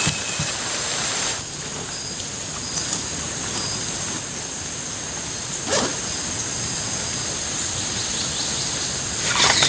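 Heavy rain falling steadily, with a couple of short sharp knocks.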